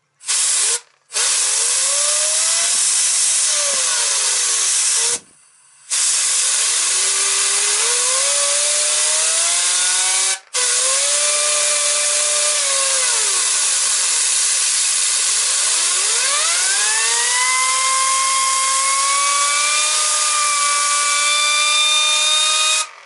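Air-powered sander running in short runs, spinning an electric motor's armature while it is polished with a yellow Scotch-Brite pad: a loud air hiss with a whine that rises and falls in pitch as the speed changes under the pad. It stops briefly about five seconds in and again near the middle, and cuts off at the end.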